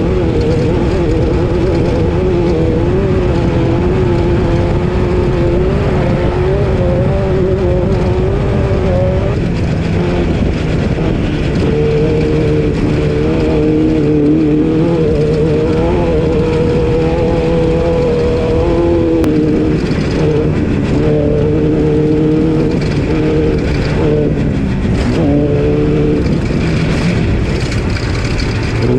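SNORE Class 12 off-road race car's engine running hard, its pitch rising and falling with throttle and gear changes, over steady road and wind noise. Scattered knocks and rattles come in during the second half.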